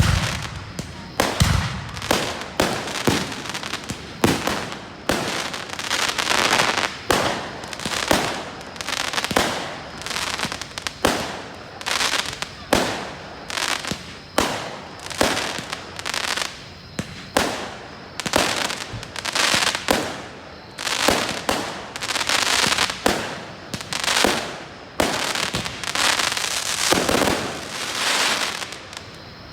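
Aerial fireworks display going off in rapid succession: sharp bangs, each followed by crackling, with barely a pause between them. A couple of deep booms come in the first two seconds.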